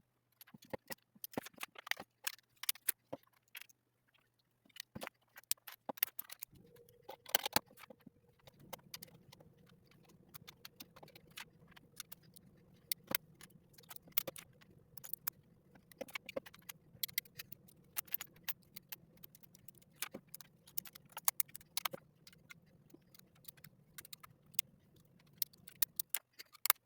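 Plastic LEGO bricks clicking and clattering as they are handled, in an irregular run of small sharp clicks. A faint low hum comes in about six seconds in and stops near the end.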